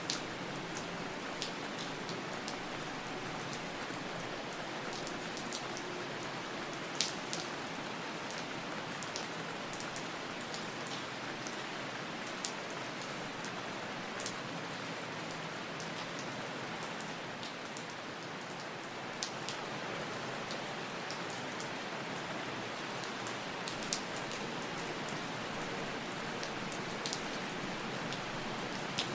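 Steady rain falling, an even hiss with scattered sharper drop impacts, one standing out about seven seconds in.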